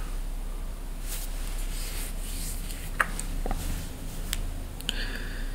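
Quiet room tone with a steady low mains hum, broken by a few faint clicks and rustles, the sharpest about three seconds in and near the end.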